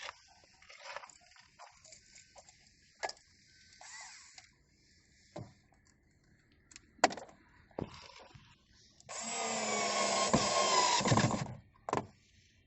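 Light clicks and knocks of parts and screws being handled, then a power screwdriver runs for about two and a half seconds, driving in one of the screws that hold the instrument cluster.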